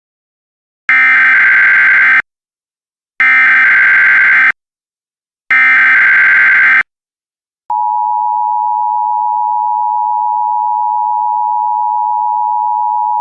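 Emergency Alert System SAME header: three identical bursts of buzzy digital data tones, each a little over a second long, with short gaps between them. About seven and a half seconds in, the steady two-tone EAS attention signal starts and holds. Together they mark the start of a new alert message.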